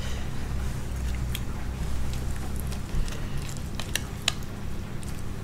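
Soft, wet handling of cooked fish skin and flesh on a china serving plate, with a few light clicks of a knife against the plate over a low steady hum.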